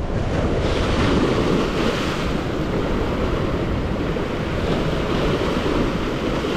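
Rough surf washing steadily, with wind buffeting the microphone; the noise swells over the first second and then holds.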